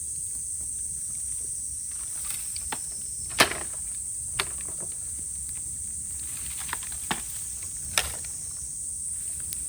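Cicadas droning in a steady high-pitched chorus, with a handful of sharp crackling pops from bamboo burning in a bonfire; the loudest pop comes about three and a half seconds in.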